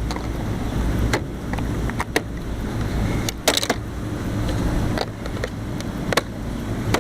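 Steady low hum of rooftop air-conditioning equipment, with sharp clicks and knocks now and then.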